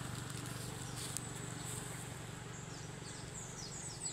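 High, short chirps from wildlife repeating several times a second, with a run of falling chirps near the end, over a low steady hum that slowly fades.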